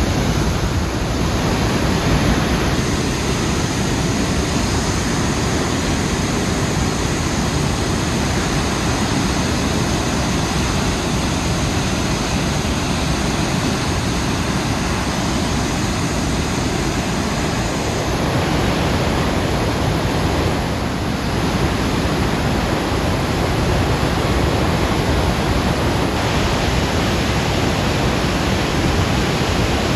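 Dettifoss, a large glacial waterfall, heard close from the canyon rim as a loud, steady rush of falling water and spray.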